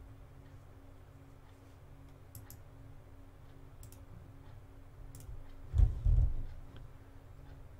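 Low steady hum with a few sharp, light clicks spread through it, and a loud, dull low thump, doubled, about six seconds in.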